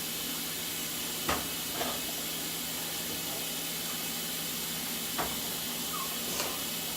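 Kitchen tap water running steadily into a sink, a continuous hiss, with four short light knocks scattered through it.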